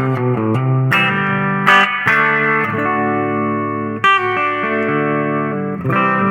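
Electric guitar played through a Roland Micro Cube RX modelling amp, with a Notaklon (Klon-style) overdrive pedal in the chain. Strummed chords are left to ring, with a new chord roughly every second or two. It is loud enough to clip the recording.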